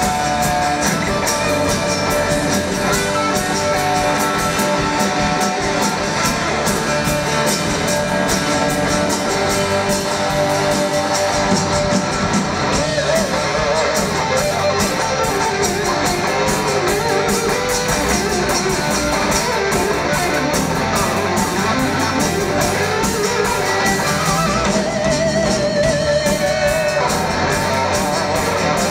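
Live rock band playing, an electric guitar taking the lead with wavering, bent held notes over a steady drum beat.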